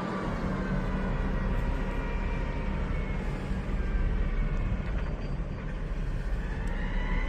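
A heavy vehicle's engine running steadily, with a faint high whine that rises near the end.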